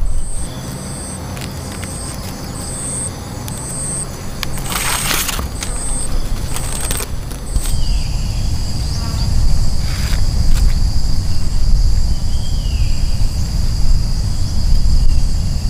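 Outdoor ambience: a steady low rumble with insects calling. A high chirp repeats about twice a second, then gives way about halfway through to a steady high-pitched insect drone. A brief rustle comes around the fifth second and a single knock near the tenth.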